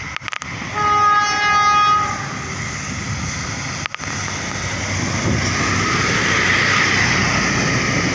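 Tour bus horn sounding one steady note for about a second and a half, followed by a rushing noise that grows louder over the next few seconds.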